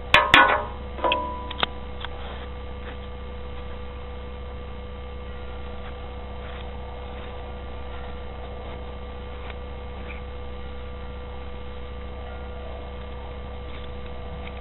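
A few sharp metallic clinks and clicks in the first two seconds, one with a short ring, from handling a CO2 cartridge and magazine parts while loading the pistol, then a steady electrical mains hum.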